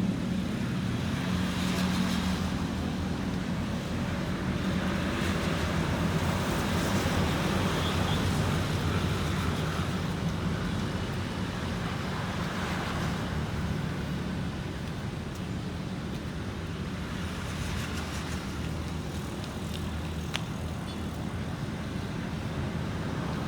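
Roadside traffic: an engine idling steadily close by while several vehicles pass.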